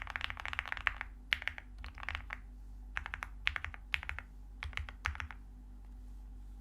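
Typing on a custom Jelly Epoch mechanical keyboard with lubed Gateron Black Ink linear switches, a PC plate and MT3 keycaps: a fast run of keystrokes, then several shorter bursts, stopping about five seconds in. A steady low hum sits underneath.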